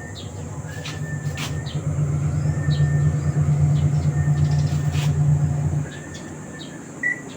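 Whirlpool automatic washing machine on its spin cycle, the drum spinning with a steady low rumble that grows louder for a few seconds and then drops away about six seconds in. It is spinning and draining again now that the drain motor and its spring have been fixed.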